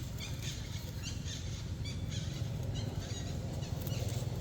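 Short, high animal chirps repeating a few times a second over a steady low rumble.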